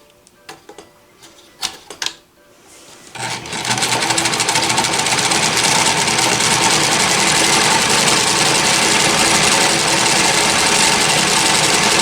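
A few light clicks and knocks, then, about three seconds in, a Janome L393 sewing machine starts and runs steadily at speed, sewing a blind hem stitch.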